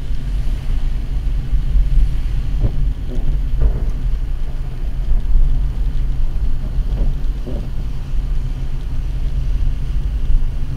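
Steady low rumble of a car driving on a wet road, heard inside the cabin through the dashcam's microphone: engine and road noise with a hiss from the tyres on wet pavement.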